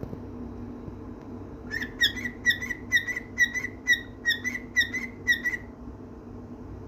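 Cockatiel whistling a quick run of about ten short, repeated chirpy notes, starting about two seconds in and lasting some four seconds.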